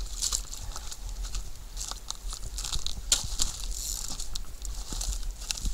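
A hooked carp thrashing at the surface near the bank, giving irregular small splashes and crackles.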